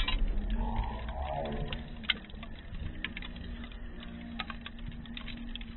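Wood fire crackling, with irregular sharp pops and clicks and one louder pop about two seconds in.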